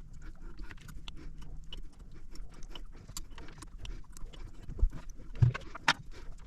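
Irregular clicks and knocks of hand tools working on the engine, with two duller thumps about five seconds in and a sharp loud click just before six seconds.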